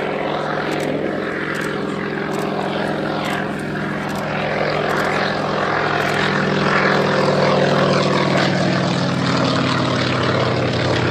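PZL-106 Kruk agricultural aircraft's engine and propeller running steadily on a low, close flypast, getting somewhat louder partway through.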